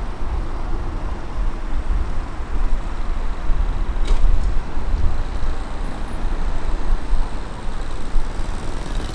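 Steady low rumble of a car driving along a road: tyre and wind noise with a faint tick about four seconds in.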